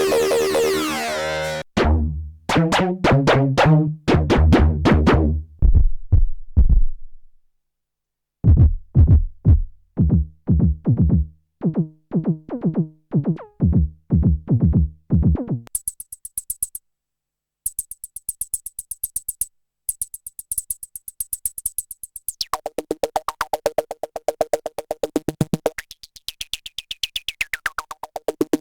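Arturia MicroFreak synthesizer stepping through several presets. A held chord gives way to short, punchy repeating bass-note sequences, then a high, rapid ticking pattern, then a fast repeating arpeggio whose tone sweeps up and back down near the end. Short gaps mark the changes between patches.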